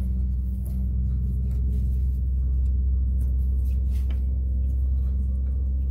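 A steady low hum runs throughout, with a few faint small clicks and taps over it.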